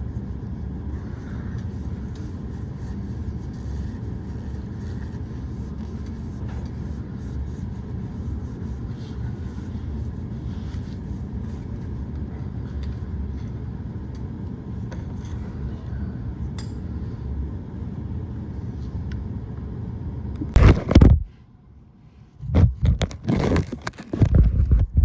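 A steady low rumble runs for most of the time. Near the end it stops abruptly, and after a moment of quiet come loud, irregular scrapes and metallic clinks of small metal parts and tools being handled.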